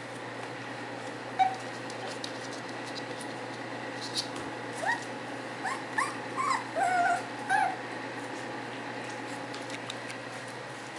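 Puppies whimpering: a run of about six short, high, rising-and-falling whines in the middle, with one brief yelp before them. Faint clicks from the puppies eating kibble sit beneath.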